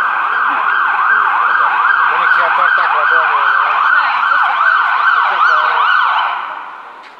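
Emergency vehicle siren sounding loudly in a fast rising-and-falling yelp, about two sweeps a second, then fading away about six seconds in.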